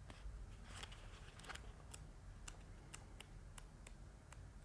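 Pages of a small paper oracle booklet being leafed through by hand: a faint, irregular series of about a dozen soft paper flicks and ticks.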